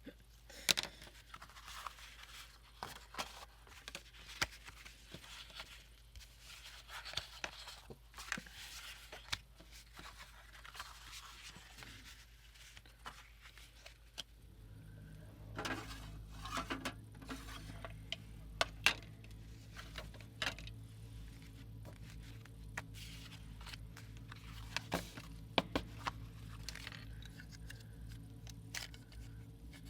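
Hands working with paper and packing materials: rustling, scraping, tearing and many small sharp clicks and taps. About halfway through, a steady low hum starts and carries on underneath.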